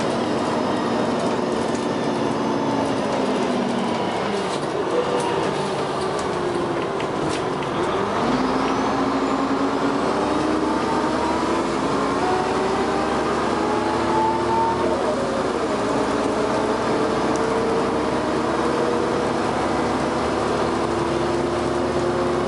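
Dennis Arrow double-decker bus engine and ZF automatic gearbox under way. The note falls as the bus slows, then rises steadily as it picks up speed from about eight seconds in. It drops once as the gearbox changes up, then climbs again.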